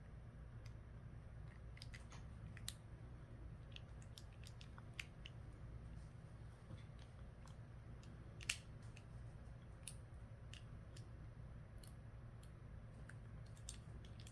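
Faint, scattered clicks and light taps of a vehicle ignition lock cylinder and its small parts being worked by hand, over a low steady hum. The sharpest click comes about eight and a half seconds in.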